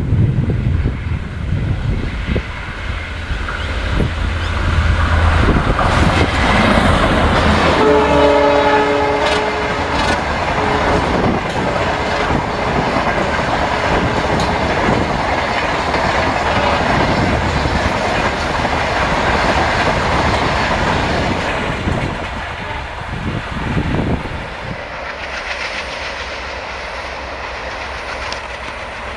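Indian Railways diesel locomotive hauling its train past, with a low engine drone and a steady rush of wheel and rail noise. A multi-tone horn sounds once, about eight seconds in, for about two seconds.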